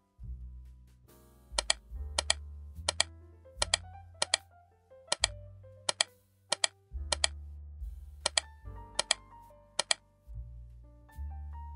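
Instrumental background music: low bass notes changing about every second under a light keyboard-like melody, with a sharp click-like percussive tick recurring every half second to second.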